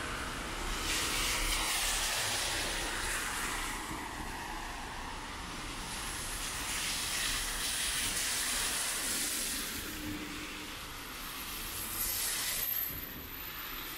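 Traffic on a rain-wet street: tyres hissing on the wet road as vehicles pass, swelling and fading about three times.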